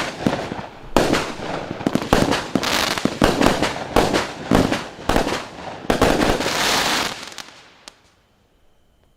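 49-shot, 0.8-inch consumer fireworks cake firing in quick succession: about one sharp launch thump a second, each followed by crackling bursts. The shots die away about eight seconds in as the battery burns out.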